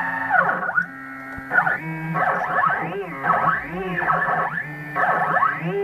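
Stepper motors of a home-built CNC router moving a pen head. They make a whining, many-pitched tone that sweeps up and down in repeated arcs as the axes trace curves, and hold a steady pitch for a moment about a second in.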